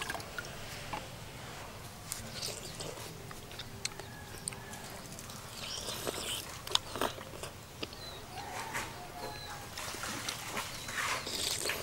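A metal spoon clicking against a small ceramic bowl, with sipping and slurping of a soupy dessert about six seconds in. Faint short animal calls sound in the background.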